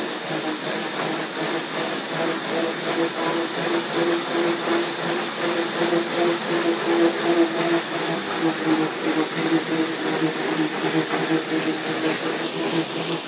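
A dog treadmill running under a pit bull: a steady mechanical whir with a low hum, the loudness pulsing quickly throughout.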